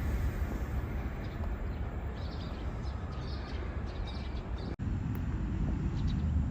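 Outdoor background noise: a steady low rumble with faint, short high chirps, broken by a sudden brief dropout about five seconds in.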